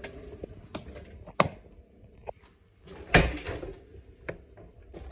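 Scattered knocks and clatters of objects being handled, with a sharp knock about a second and a half in and a louder, longer rattle about three seconds in.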